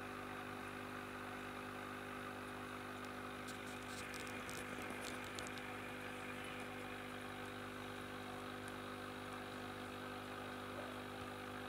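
Aquarium pump humming steadily, with a cluster of faint high ticks about four to five seconds in.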